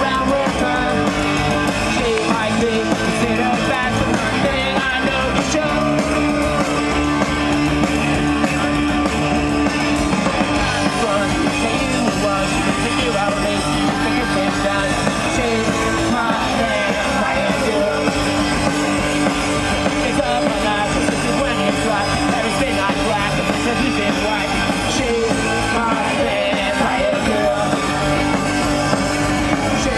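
A punk rock band playing live, loud and steady, with singing at times.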